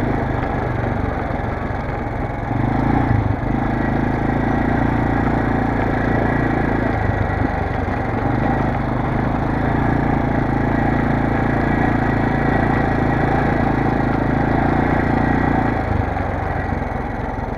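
Kymco MXU 400 ATV's single-cylinder engine running as the quad is ridden, pulling harder for two long stretches and easing off in between, with a steady rush of tyre and wind noise underneath.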